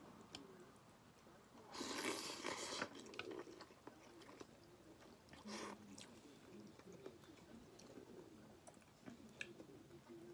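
A person eating noodle soup: chewing and slurping from a porcelain spoon, with two loud slurps, one about two seconds in and a shorter one about five and a half seconds in. Faint clicks throughout.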